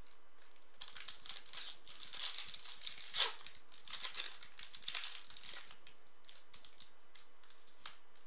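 Foil wrapper of a Topps Platinum football card pack being torn open and crinkled by hand: a run of crackly crinkles and rips starting about a second in, with one loud tear about three seconds in, then quieter handling of the wrapper and cards.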